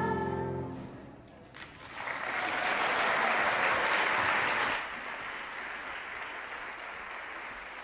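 A children's choir holds its final sung note for under a second and stops. After a short pause, audience applause swells, stays loud for about three seconds, then dies down.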